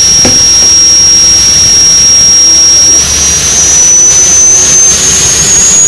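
Turbine-powered modified pulling tractor under power, a loud, steady high-pitched turbine whine that rises slightly in pitch about halfway through.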